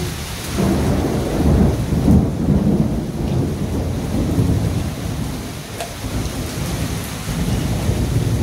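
Heavy monsoon rain falling, with a deep rumble of thunder that rolls in about half a second in, is loudest around two seconds, eases, and swells again near the end.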